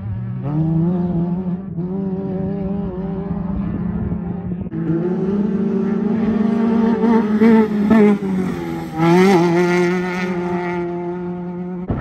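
Off-road race car engine running hard at high revs as it goes by. The pitch climbs early on, holds, and then the engine note drops out briefly about nine seconds in before rising again as the throttle comes back on.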